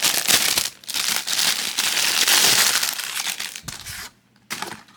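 Packaging crinkling and rustling as it is handled during unboxing, dense and loud for about four seconds with a short break near the first second. It stops about four seconds in, with one brief rustle after.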